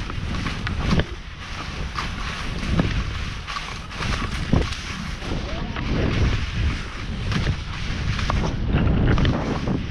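Skis hissing and scraping through soft snow on a fast downhill run, with wind buffeting the microphone in a heavy rumble and several sharp knocks and clicks scattered through it.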